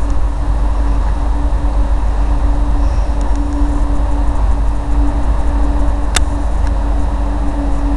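TGV Atlantique high-speed trainset rolling slowly into the station, a low rumble under a steady hum, with one sharp click about six seconds in.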